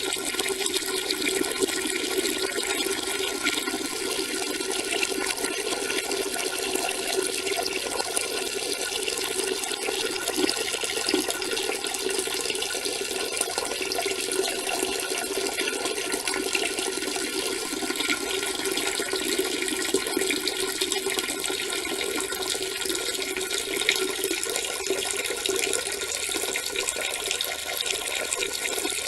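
A person urinating: a steady, unbroken stream of urine splashing into liquid.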